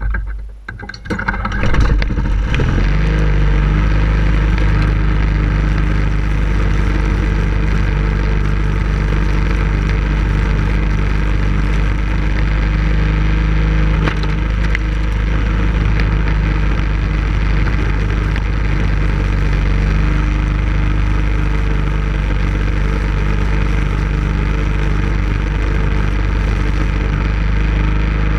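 Walk-behind lawn mower engine catching unevenly over the first two seconds, then running at a steady speed while the mower cuts grass.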